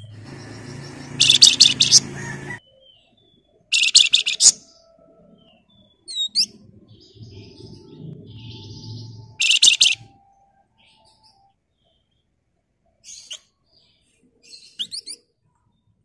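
Flamboyan (wergan Jawa) songbird giving loud, rapid rattling trills ('ngebren'): three short bursts, about a second in, about four seconds in and near ten seconds, with thin sweeping chirps between them.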